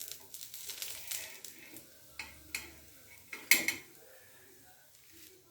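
A metal utensil scraping and clinking on a dosa griddle, with a few sharp clinks and one louder clank about three and a half seconds in.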